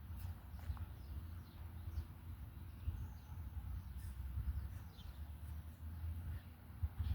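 Faint, scattered bird chirps over a low, uneven rumble.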